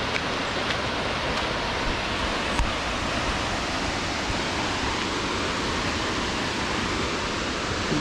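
Steady, even rush of a tall waterfall, about 109 m high, with no change in level.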